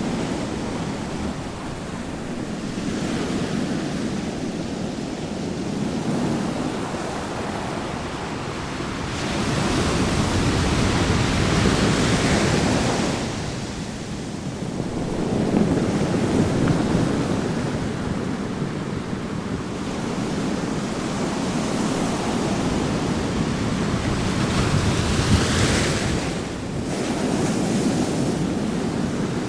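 Ocean waves breaking on a beach, the surf rising and falling in slow swells every few seconds.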